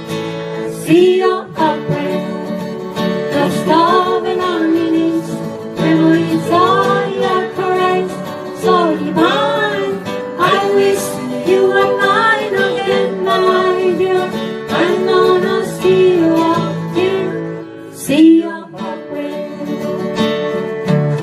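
Guitar-led instrumental break of a country song: a lead melody with sliding, bending notes over plucked guitar accompaniment.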